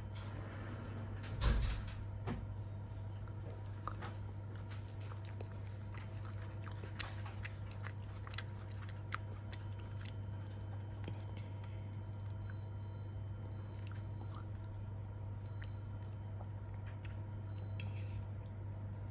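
A person chewing and biting food, with small crunching clicks, over a steady low hum; a louder thump about a second and a half in.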